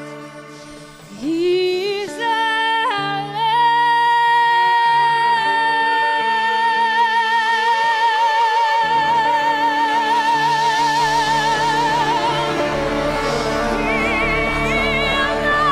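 A woman sings a long, high, wordless held note with a wide vibrato over sustained keyboard chords. Her voice slides up into the note about a second in, holds it for about eight seconds, then moves to higher notes near the end.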